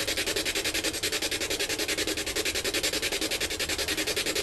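SB7 spirit box sweeping AM and FM radio frequencies at a very fast rate, giving a steady choppy radio static that pulses about ten times a second.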